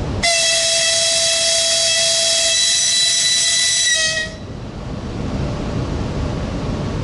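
An EP1 electric locomotive's horn sounds one long blast of about four seconds as the engine departs with a passenger train. The blast stops abruptly, leaving the steady rumble of the moving train.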